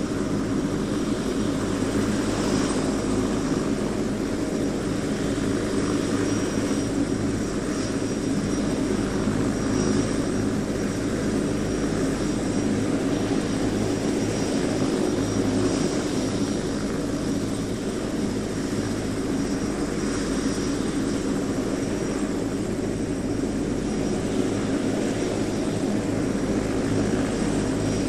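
Helicopter engine and rotor running steadily at a constant level, with a faint high turbine whine above the low rotor and engine note.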